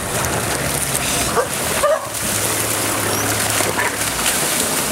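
Short yelping and whimpering calls from African wild dogs and spotted hyenas in a hunt, a few sharp rising cries over the splashing of animals running through shallow water.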